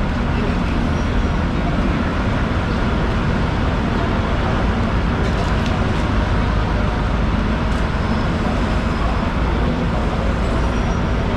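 Steady low rumble of background noise with faint voices and a few light clicks.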